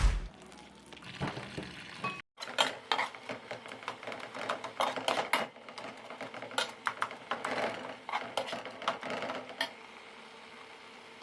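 Light kitchen clatter: quick, irregular clicks and knocks of utensils and dishes being handled, stopping about two seconds before the end.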